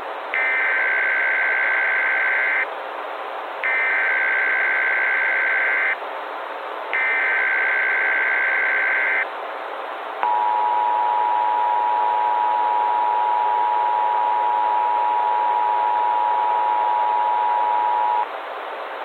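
Emergency Alert System activation: three bursts of SAME digital header data, each a little over two seconds with short gaps, then the two-tone EAS attention signal held steady for about eight seconds, over a constant hiss.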